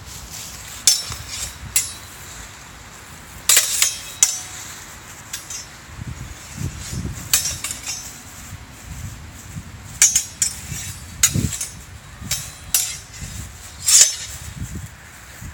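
Longsword blades clashing in free sparring: sharp metallic clanks with a brief ring, some single and some in quick clusters, several about three and a half seconds in and again around ten and fourteen seconds.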